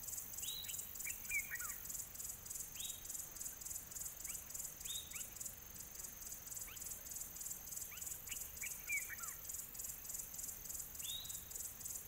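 Bush ambience: a steady, high, evenly pulsing insect chorus, with a small bird giving short, sharp descending calls every couple of seconds.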